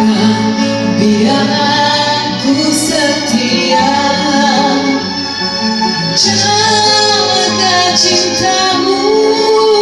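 Music: a woman singing with instrumental backing, holding long notes.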